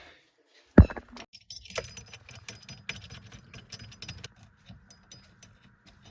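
One sharp metallic knock about a second in, then quick irregular metal clinking and rattling of hand tools and bolts being handled, thinning out near the end.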